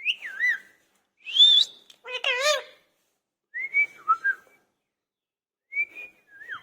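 Indian ringneck parakeet whistling: about five short phrases of wavering, up-and-down whistles with brief pauses between them.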